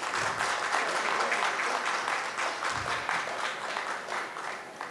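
Audience applauding: many hands clapping together. The applause is fullest in the first second or two and tapers off toward the end.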